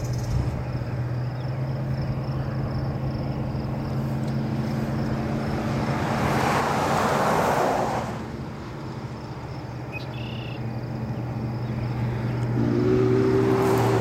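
Steady low engine hum, with a broad rushing swell that builds and falls off about six to eight seconds in. Near the end a chord of several steady tones begins: the steam whistle of Union Pacific 4-8-4 No. 844, blowing as it approaches a grade crossing.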